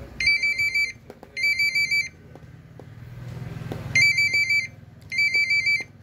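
A phone ringtone playing from a Vivo phone's speaker under Funtouch OS 4: an electronic two-tone warble in short rings, two pairs of rings about 0.7 s each, with a pause between the pairs.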